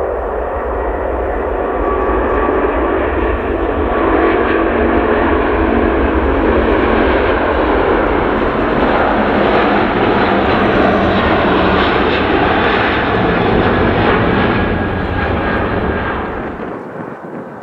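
Airbus A380's four jet engines at take-off thrust as it rolls, lifts off and climbs out: a loud, steady roar with droning tones in it. It drops away sharply near the end.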